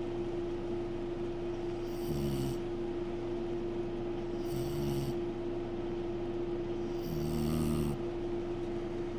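Snoring: three snores about two and a half seconds apart, the third the longest and loudest, over a steady hum.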